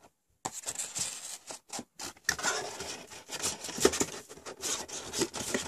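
Hands handling white paperboard packaging: cardboard parts rubbing, scraping and clicking against each other as the inner boxes are shifted and a lid is fitted, starting after a brief pause.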